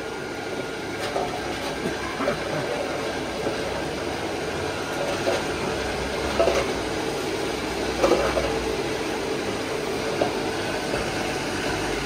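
Steady rushing noise of a blower-fed coal forge heating a copper pot for tinning, with a few clinks of the tongs against the pot, the loudest around the middle.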